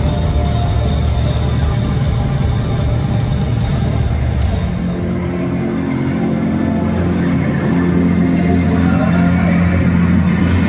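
Live rock band playing loud, heavy music with distorted guitars, bass and drums. About four and a half seconds in, the dense cymbal wash drops away, leaving held low guitar and bass chords with spaced drum hits.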